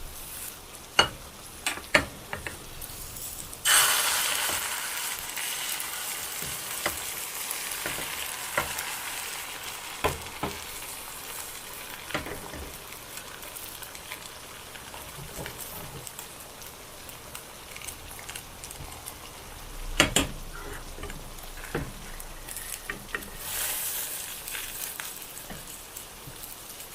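Food sizzling in a hot frying pan. The sizzle starts suddenly about four seconds in, after a few light clicks and knocks, then settles to a steady sizzle with occasional utensil taps. There is a louder knock about twenty seconds in and a short swell of sizzling near the end.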